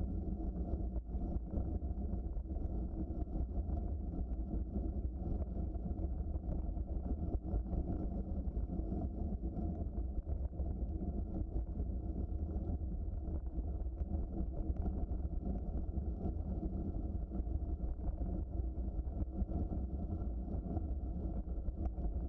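Steady low rumble of a moving bicycle: tyres rolling over the trail surface, with wind on the microphone.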